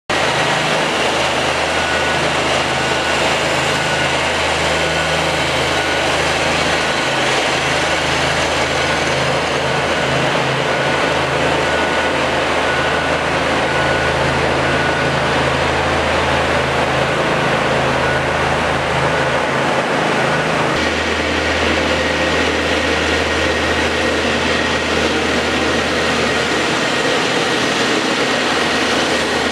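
Tennant M20 ride-on scrubber-sweeper running steadily as it scrubs a wet floor: a low engine hum under a wide, even hiss. The hum changes character about two-thirds of the way through.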